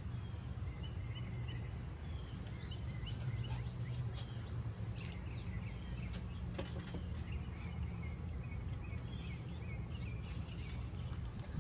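Outdoor background: small birds chirping on and off over a steady low hum, with a few faint clicks.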